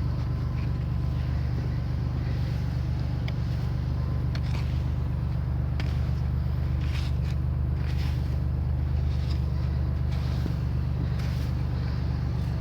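A car engine idles with a steady low hum while snow is scraped off the car, heard as a few short, separate scraping strokes.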